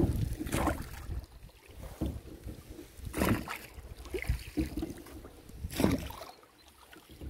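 Rowboat oars stroking through the water, five strokes a little over a second apart, each a short splash and knock. Wind rumbles on the microphone underneath.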